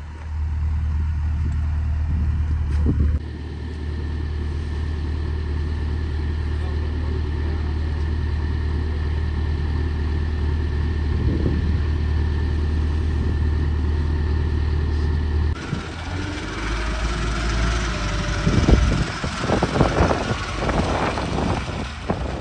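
Kubota 105X combine harvester's diesel engine running steadily at work, a loud low drone. The sound shifts abruptly about three seconds in and again about two-thirds of the way through. The last stretch is rougher and more uneven.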